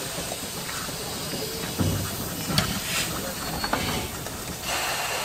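Steam locomotive letting off steam in a steady hiss, with a few knocks about two seconds in. Near the end the hiss grows stronger and a thin steady high tone joins it.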